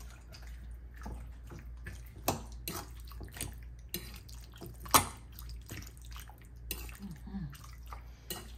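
A fork stirring chicken pieces in a wet seasoning marinade in a bowl: soft wet squelching with irregular sharp clinks of the fork against the bowl, the loudest about five seconds in.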